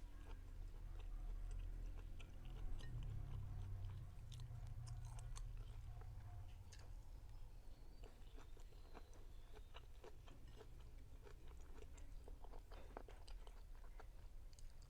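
A person chewing food with the mouth, with many small irregular clicks and crunches.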